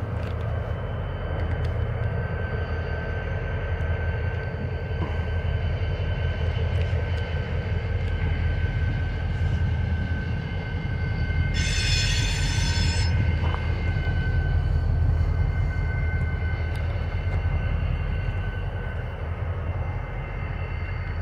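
BNSF diesel locomotives moving slowly past, their engines running with a steady low rumble and a steady whine. A short high-pitched burst comes about halfway through.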